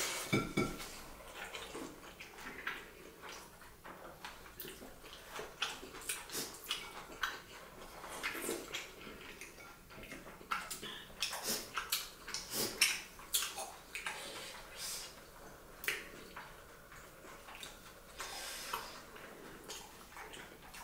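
Eating sounds at a table: irregular light clinks and taps of ceramic bowls and plates, with occasional slurps of soup sipped from a bowl.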